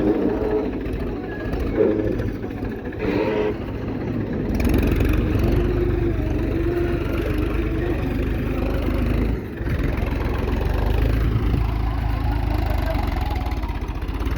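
Diesel engine of the earthmoving machinery running under load, growing heavier and louder about four seconds in and dipping briefly near the middle.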